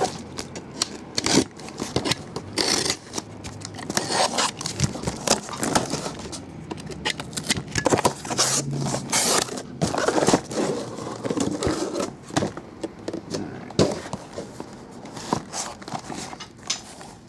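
A cardboard case being cut open with a box cutter and pulled apart: irregular scraping, tearing and crackling of cardboard with sharp clicks. Near the end, boxes of cards are slid out of it.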